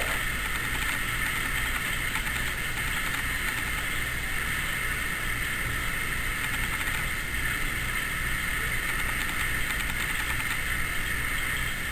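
A steady mechanical hum with hiss, even and unchanging throughout.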